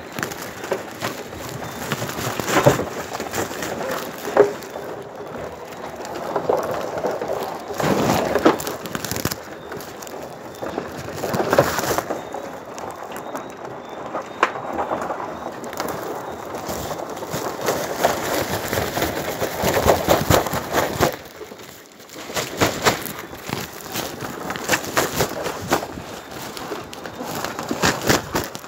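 Woven sack of live crabs rustling and crackling as it is handled right against the microphone, with many irregular clicks and scrapes that swell and fade unevenly.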